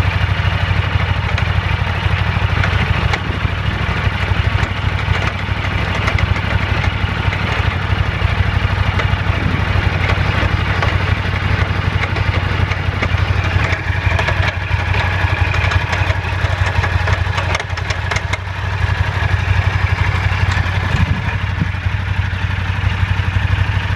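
Buell 1125's Rotax V-twin idling in gear with the clutch lever released, spinning the rear wheel on a stand through its drive belt, with a constant clatter and clunking from the drivetrain. The clunking comes only in gear with the clutch out, and the owner takes it for a transmission fault that sounds pretty bad.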